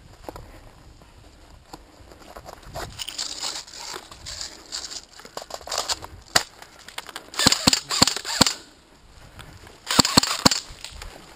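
Airsoft guns firing in short volleys of quick shots: a single crack about six seconds in, a run of rapid shots around seven to eight seconds in, and another run about ten seconds in.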